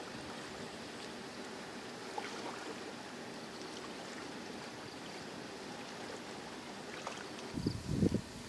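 Steady running water with a few faint small splashes or ticks. Near the end, wind starts buffeting the microphone in low gusts.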